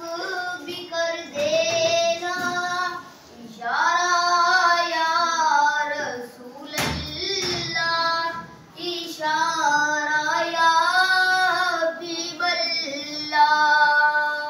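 A boy singing an Urdu song solo and unaccompanied, in long held, ornamented phrases with short breaks for breath. A single brief knock about halfway through.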